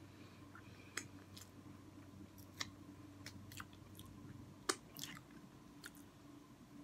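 Close-up mouth sounds from eating: lips smacking and fingers being sucked clean, with a few sharp wet clicks, the loudest about one, two and a half and nearly five seconds in, over a faint steady hum.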